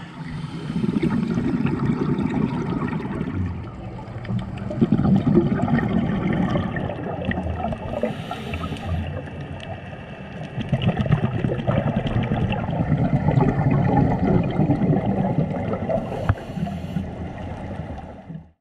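Scuba diver's breathing heard underwater: exhaled bubbles from the regulator gurgle in rounds of a few seconds, broken twice by a short hiss, and the sound cuts off just before the end.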